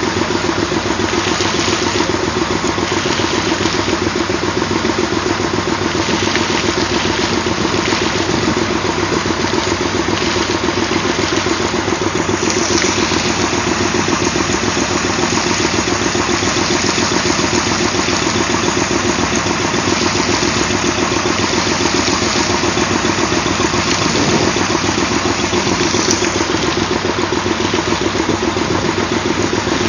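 Old Westinghouse train air-brake compressor running steadily on a well-cleaning job, with a rapid, even pulsing and a hiss over it that swells briefly about halfway through.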